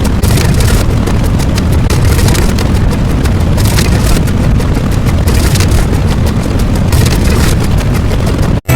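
A loud, continuous rumbling noise with a heavy low end and crackling hiss above. It cuts off abruptly just before the end.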